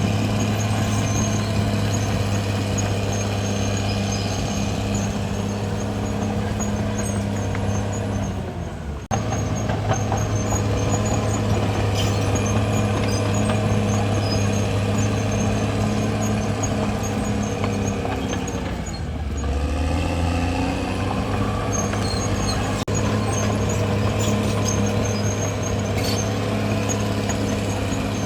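Caterpillar D6R XL bulldozer's diesel engine running steadily under load, with faint high squeaks from the running gear. The engine note sags and bends about two-thirds of the way in, then picks back up, and there is a sudden brief break about 9 seconds in.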